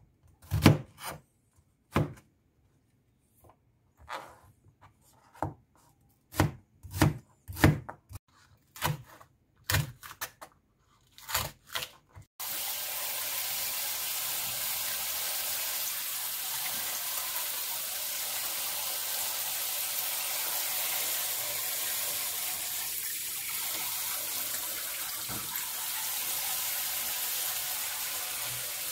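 Chef's knife chopping through onion onto a plastic cutting board, about twenty sharp strokes at an uneven pace. About twelve seconds in, a kitchen tap starts running into a steel sink as a steady hiss while hands are rinsed under it.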